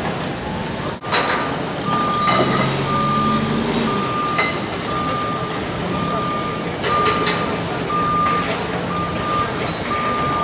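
Construction vehicle's reversing alarm beeping steadily, about one beep every 0.7 seconds, over a running engine. Occasional sharp metallic knocks are mixed in.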